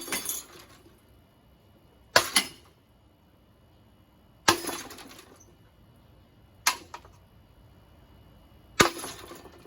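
Five sharp hits on a ceiling fan, evenly spaced about two seconds apart, each followed by a brief rattle.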